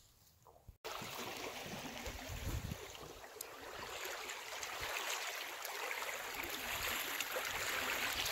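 A stream flowing steadily: an even rush of running water that starts abruptly about a second in, after a quiet moment.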